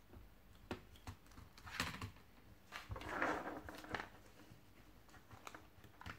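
Light clicks and taps of a replacement laptop keyboard being handled and plugged into an opened Lenovo ThinkPad T430s, with a short rustle about three seconds in.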